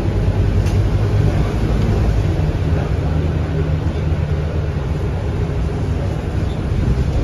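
Scania K230UB single-decker bus's five-cylinder diesel engine running steadily under way, heard from inside the passenger cabin as a low hum, with the hiss of heavy rain and tyres on a wet road.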